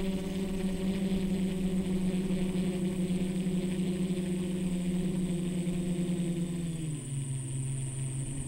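Quadcopter's electric motors and propellers, heard from on board, giving a steady buzzing drone that drops lower in pitch about seven seconds in as the throttle comes back and the craft tips down.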